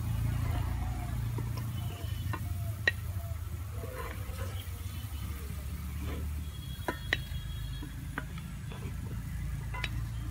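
Gulab jamun dough balls frying in hot oil in a metal kadai, a soft steady sizzle over a low rumble. A few sharp clicks come as the fried balls are scooped out with a wooden spoon and set on a ceramic plate.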